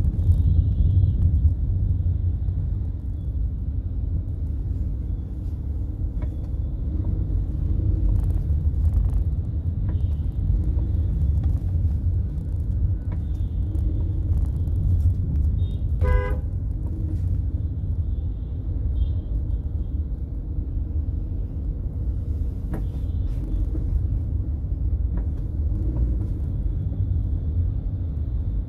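A vehicle driving through city traffic, with a steady low road and engine rumble. A short horn toot comes about 16 seconds in, and fainter horns sound now and then.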